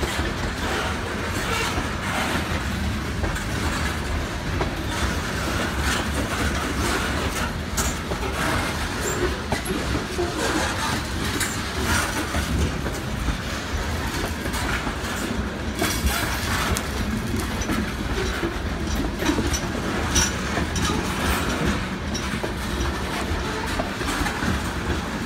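Freight train cars rolling past on the track: a steady rumble of steel wheels on rail, broken by irregular clacks as the wheels cross rail joints.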